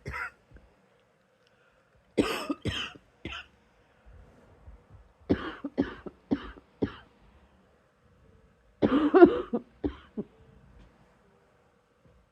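A person coughing in short bouts: three coughs about two seconds in, four more a few seconds later, then a quick run of several near the end. A quiet night-time cough, trying to bring up a small bit of phlegm.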